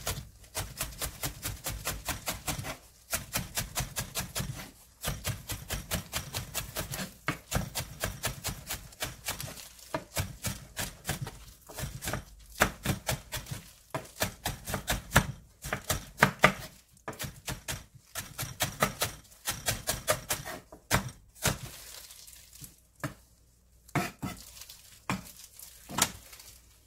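Chef's knife chopping spring onions on a wooden cutting board: rapid knocks of the blade on the board, several a second, in runs broken by short pauses, thinning to a few scattered strokes near the end.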